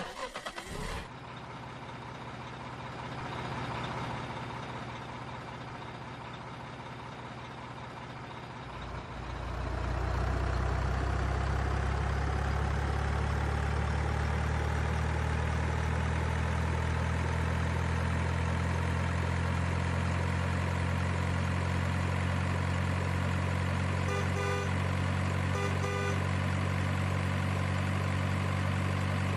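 A truck engine starts about nine seconds in and then idles at a steady low pitch. Two short beeps sound midway through the idle.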